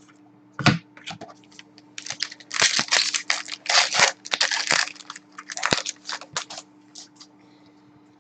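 Hockey trading cards and their plastic sleeves and wrappers being handled: a run of short rustles, crinkles and clicks, densest in the middle seconds.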